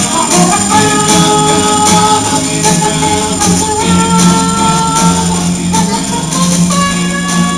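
Background music from an upbeat song with a steady beat and held melody notes.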